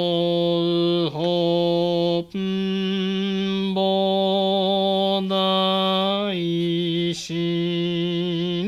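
A man chanting a Shin Buddhist sutra in Japanese. He draws each syllable out on a nearly steady pitch, with short breaks between phrases.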